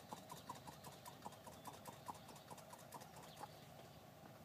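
Hand-squeezed vacuum pump brake bleeder being pumped in quick strokes to pressurise a fuel-injector flushing rig, a faint rhythmic clicking about four times a second that fades and stops near the end.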